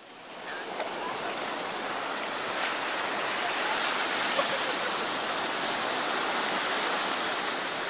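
Ocean surf on a beach: a steady rushing hiss of waves breaking and water washing over the sand, fading in over the first second.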